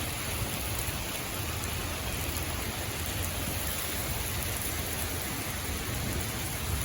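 Heavy tropical-storm rain pouring steadily, with wind making a low, uneven rumble underneath.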